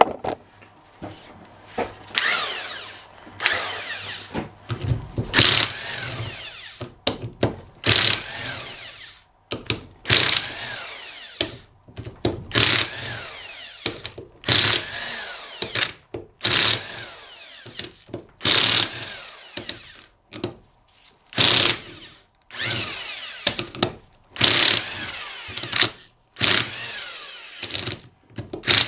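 Handheld power tool run in repeated short bursts, about one every two seconds, each spinning up and winding down in pitch, as bolts are run out during differential teardown.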